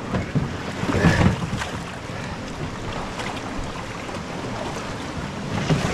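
Steady rush of whitewater rapids, with a few knocks and thuds about a second in and again near the end as a swamped canoe is hauled up and tilted on its side to empty it.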